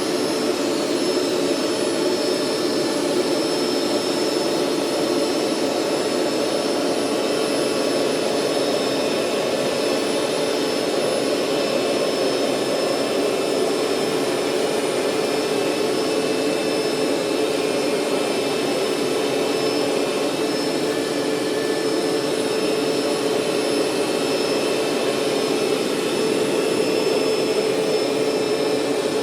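Hoover SteamVac SpinScrub 50 carpet cleaner running steadily, its suction motor giving a loud, even whine.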